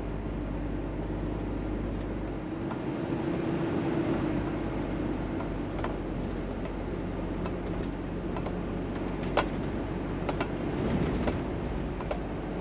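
Inside a Scania truck's cab while driving through town: steady diesel engine hum and road noise. The engine note rises a couple of seconds in and then settles, with a few scattered clicks and rattles from the cab in the second half.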